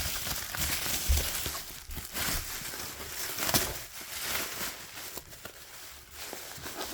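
Bubble wrap being handled and pulled away from packed vinyl records: irregular crinkling and rustling of plastic packaging.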